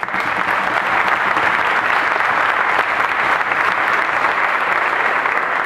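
Audience applauding, breaking out at once and holding steady, easing slightly near the end.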